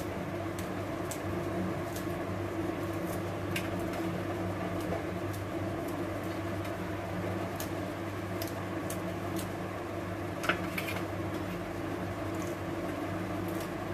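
Green chilli being cut with a small knife held in the hand, the pieces dropping into a steel mixer-grinder jar: faint scattered snips and ticks, one a little louder about ten seconds in. A steady low mechanical hum underneath.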